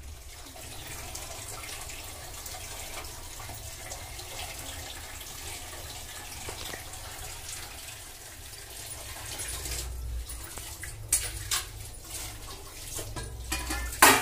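Water pouring into a steel pot of soya chunks, a steady hiss. Several sharp clicks come in the last few seconds.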